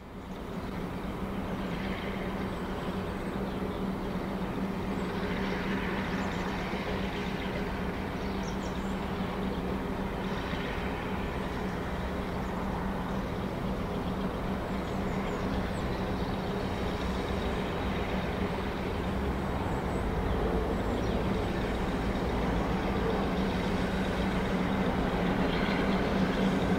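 Class 42 Warship diesel-hydraulic locomotive D832 'Onslaught' running as it draws a passenger train into the station, its Maybach engines giving a steady deep hum that slowly grows louder toward the end.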